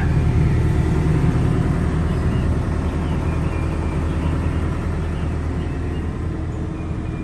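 Diesel engine of a Case CX210B crawler excavator running steadily, a continuous low drone with a slight easing in loudness toward the end.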